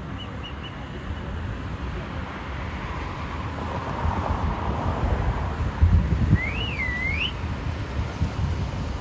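Wind buffeting the microphone outdoors, a steady low rumble with a few heavier low thumps about two-thirds of the way through. Three short high chirps come near the start, and a single whistled note swoops up, down and up again shortly after the thumps.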